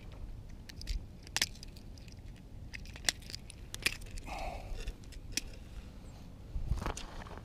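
Scattered sharp metallic clicks and ticks as fishing pliers and a lure's hooks are worked free of a striped bass's mouth, over a low rumble.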